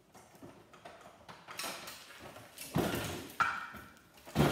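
A CRT monitor's circuit board and its metal frame being tugged and wiggled, rattling, scraping and knocking, with the loudest knocks about three seconds in and near the end. The board will not slide out because it is still held by a couple of screws.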